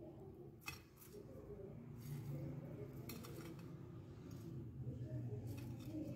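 A few light clinks and taps as fried bread rolls are set down in an oval glass baking dish, over a low steady hum that grows louder about two seconds in.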